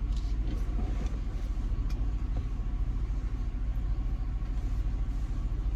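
A car engine idling: a steady low rumble with no change in pitch.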